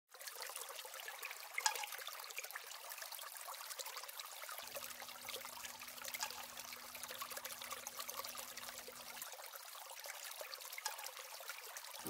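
Water trickling down a small aquaterrarium's wall of moss-covered stone tiles: a quiet, steady trickle with many small drips and splashes.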